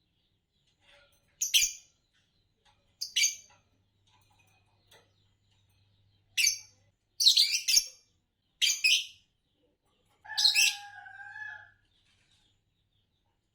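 Green Fischer's lovebirds chirping: short, sharp, high-pitched calls every second or two, then one longer call about ten seconds in that holds a steady tone for over a second.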